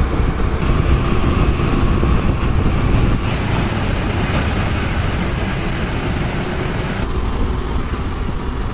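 Wind rushing over the microphone together with engine and road noise from a moving two-wheeler: a loud, steady, dense rumble that shifts slightly a few times.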